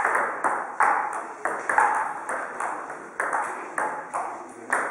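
Table tennis rally: the ball clicking back and forth off the bats and the table, about two hits a second, each click echoing briefly.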